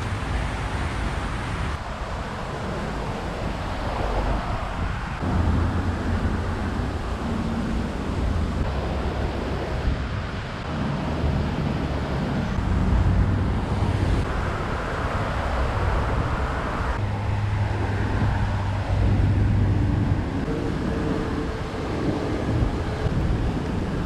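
Wind buffeting the microphone over the rumble of passing road traffic, with no speech or music.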